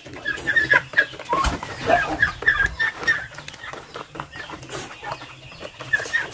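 A flock of young turkeys calling with short, high chirps and clucks, several a second.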